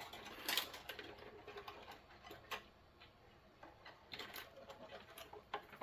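Faint, scattered small clicks and light taps of hand work on wiring: wires and a small tool handled while disconnecting wires from a fire alarm control panel's terminals.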